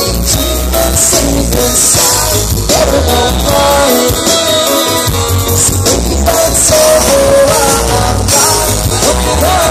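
Reggae band playing live over a loud PA, recorded from within the crowd: a heavy, pulsing bass line and drums, with a melodic line gliding over them.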